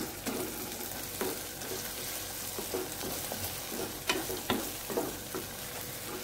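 Chopped tomato and onion sautéing in oil in a nonstick kadai: a steady sizzle while a spatula stirs and scrapes through the mixture in irregular strokes, two sharper scrapes a little after four seconds in.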